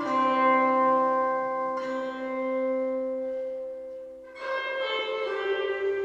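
Background music on strings, long held notes with the chord changing about two seconds in and again a little past four seconds.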